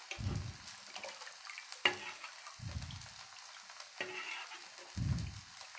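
Rava dosa frying on a dosa griddle over low flame, its oil giving a light, steady sizzle. A sharp click comes about two seconds in, and soft low thumps come three times, roughly every two and a half seconds.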